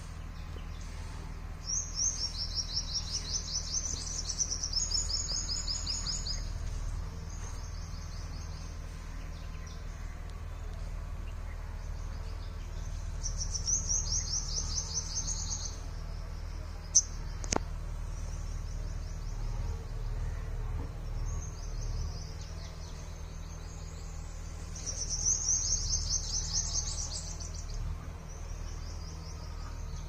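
A small bird singing high, rapid trills in three main bouts a few seconds each, with fainter trills between, over a steady low background rumble. A single sharp click about halfway through.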